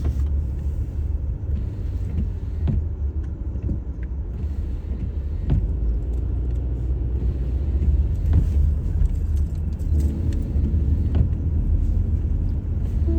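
Car driving on a snowy road: a steady low rumble of the tyres and engine, with a short knock or click about every three seconds.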